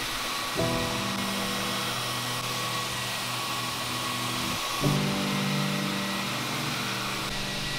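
Handheld belt sander running steadily while it sands an oak panel, a motor hum with a steady whine above it. The sound breaks off briefly a little past halfway and then starts again.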